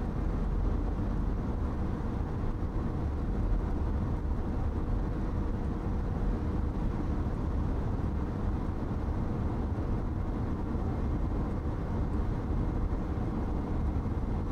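Steady road and engine noise heard inside a car's cabin while driving at speed: an even low rumble with no change in level.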